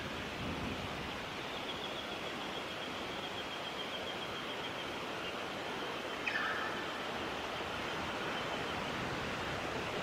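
A short, harsh bird call that drops sharply in pitch about six seconds in, with a faint high, even trill running for a few seconds before it, over a steady rushing background noise.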